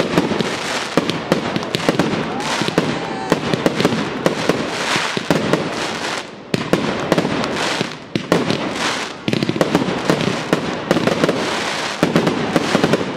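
Fireworks display at full barrage: rapid shell and cake bursts, several sharp reports a second over dense crackling, with two short lulls in the middle.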